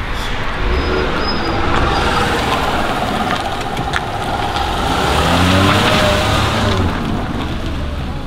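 A car engine running and accelerating as the car pulls away, its pitch rising about five seconds in.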